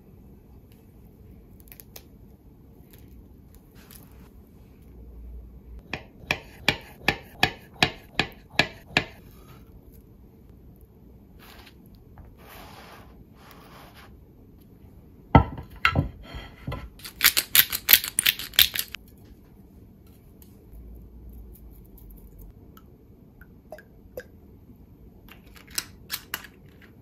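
Hands preparing avocado toast on a wooden board: a run of about ten even, sharp clicks, a single sharp knock about halfway through, then a burst of rapid, bright grinding clicks, with a few more clicks near the end.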